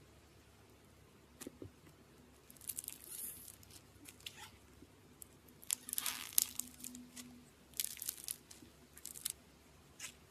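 Slime being squeezed and stretched by hand, giving irregular bursts of crackling and popping, loudest about six seconds in.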